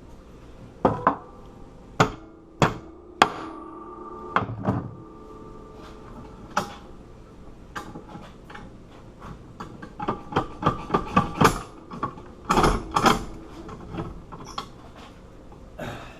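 Sharp metallic knocks and clanks with brief ringing, as a steel disk padlock and tools are struck and handled. A few spaced hits come in the first seven seconds, then a quicker run of knocks about ten to thirteen seconds in.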